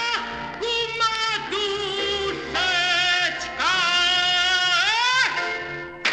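A woman singing in a strong, full voice to grand piano accompaniment, holding long wavering notes that sweep upward at the ends of phrases. The singing stops about five seconds in.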